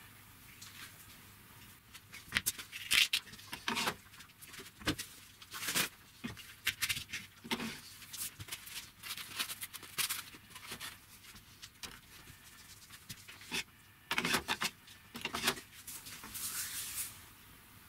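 Irregular knocks and light clatter as wooden sanding-disc holders are fitted onto dowels in a small wooden wall shelf and a random orbit sander is set down on top of it.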